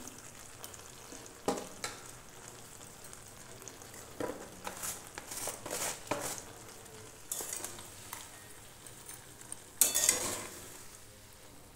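Eggplant, potato and tomato curry sizzling quietly in an aluminium kadai, with scattered crackles. About ten seconds in, a spatula scrapes through the pan as the vegetables are stirred.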